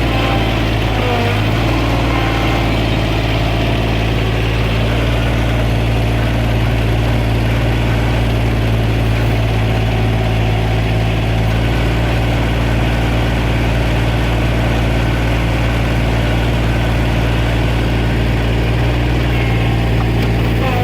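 A machine's engine running steadily at a constant speed, with a strong low hum and no changes in pitch.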